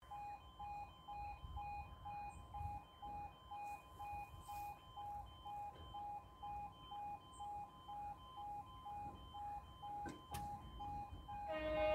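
Level crossing warning alarm sounding as a rapid pulsing tone, about three pulses a second, alternating between two pitches while the half-barriers come down. A single sharp knock comes about ten seconds in, and a different chord of tones starts just before the end.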